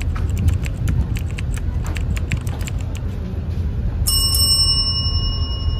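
Low steady rumble of the ferry's engines, with scattered clicks over the first few seconds. About four seconds in, a bright bell-like ding rings out and fades over a second or more: the notification-bell sound effect of a subscribe-button animation.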